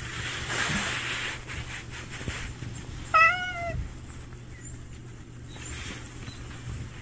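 A cat meows once, a short call about three seconds in, rising slightly and then falling.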